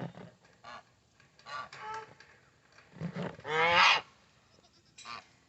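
Geese honking: a string of short calls, with one longer, louder call about three and a half seconds in.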